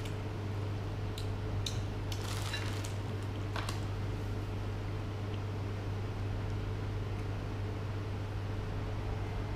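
Steady low electrical hum, with a few light clicks between about one and four seconds in.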